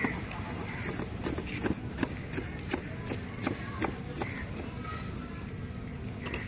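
Large kitchen knife chopping red onions on a wooden chopping board: quick, uneven knocks of the blade on the board, about two to three a second.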